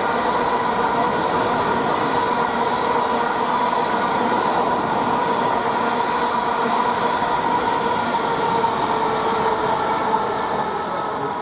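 South Western Railway electric multiple unit passing through a station at speed: a loud, steady rush of wheels on rail with a steady whine from the traction motors, fading near the end.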